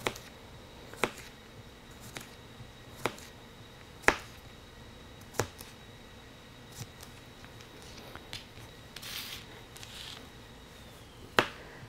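Rada stubby butcher knife slicing a cucumber into thin rounds, the blade tapping the cutting board with each cut: short sharp taps at uneven spacing, about one a second, with a brief rustle of slices near the end.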